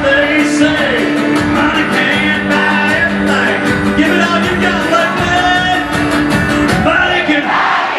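Live country-rock music played loud: an instrumental jam with guitar and a driving drum beat under long held notes.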